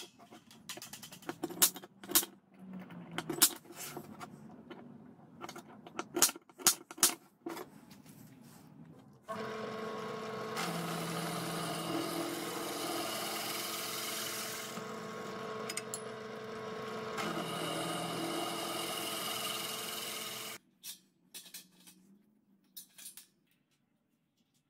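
Metal clanks and clicks as steel pieces are handled on a steel workbench, then a bench drill press motor running steadily for about eleven seconds while drilling through a steel strip, cutting off suddenly, followed by a few light clicks.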